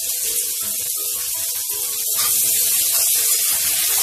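Sliced onions sizzling in hot oil in a steel kadhai, with a steel spoon knocking and scraping against the pan as they are stirred. The hiss gets a little louder about two seconds in.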